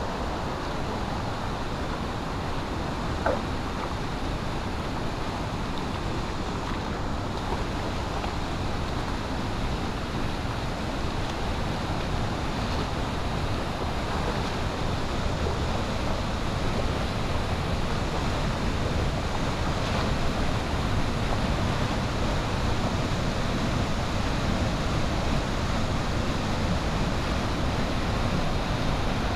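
Steady rushing of water, a continuous even roar that grows slightly louder towards the end, with one faint tick about three seconds in.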